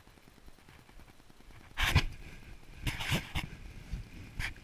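Handling noise from the camera rubbing and bumping against clothing: a faint low rumble, then a few short knocks and scrapes, the loudest about two seconds in and a cluster around three seconds.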